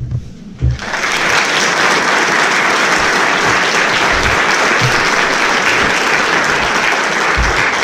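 Audience applauding steadily, starting about a second in, with a few dull low thumps underneath.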